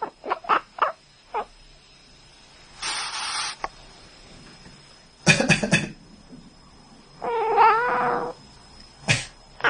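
A person coughing in several short, sharp bursts, and a domestic cat answering with one drawn-out meow about a second long, some seven seconds in. A breathy, hissing burst comes about three seconds in.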